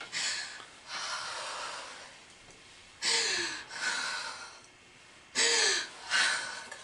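A person breathing hard in panic, with about six loud gasping breaths, two of them carrying a short falling moan. This is the strained breathing of a claustrophobic panic attack.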